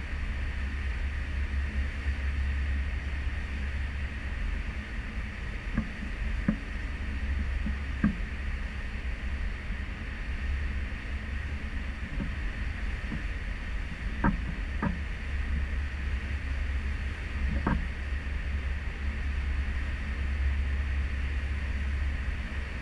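Cruise ship under way at sea, heard from a stern balcony: a steady low rumble and hiss of wake water and wind. A few faint short knocks come through now and then.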